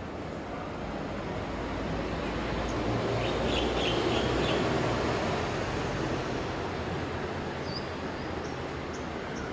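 Rumble of a passing vehicle, swelling and then fading away, with a few short bird chirps over it.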